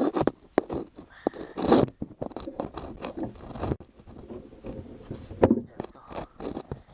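Close handling noise as parts are worked by hand: irregular clicks and knocks with scraping and rubbing. A longer rubbing scrape runs from about two seconds in and stops abruptly near four seconds.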